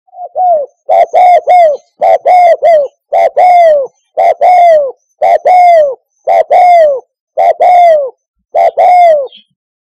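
Spotted dove cooing: a string of about nine short phrases roughly a second apart, each made of two or three falling coos.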